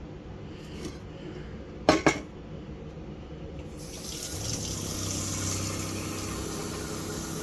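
Water running from a faucet, turned on about four seconds in after a couple of sharp clicks, with a steady low hum under the rush of water.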